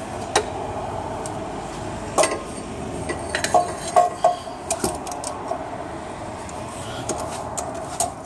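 Scattered metallic clinks and knocks as a slide hammer is handled and brought to the transmission's extension housing seal: one sharp clink just under half a second in, then a cluster of knocks between about two and five seconds in, over a steady hum.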